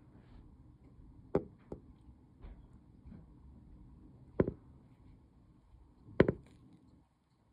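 Several sharp, short knocks or taps, irregularly spaced a second or more apart, over a faint steady background hum; the loudest comes as a quick double tap near the end.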